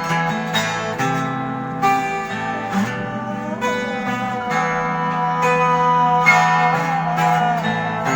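Acoustic guitar music: an instrumental stretch of a live song, with sustained notes and chords changing every second or so.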